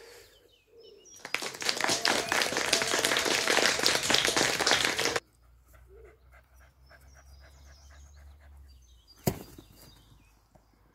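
A cocker spaniel cross panting close to the microphone for about four seconds, stopping abruptly. Then faint bird chirps, and one sharp knock near the end.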